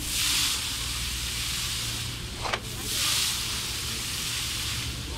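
Concrete pump pushing concrete through the delivery line in a regular cycle: a short sharp knock about halfway through, and a hissing surge lasting under a second twice, repeating about every two and a half seconds. A steady low engine hum runs underneath.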